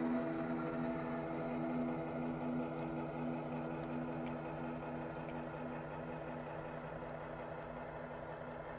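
HO scale model diesel locomotive's engine sound running steadily as the train rolls past, slowly fading toward the end.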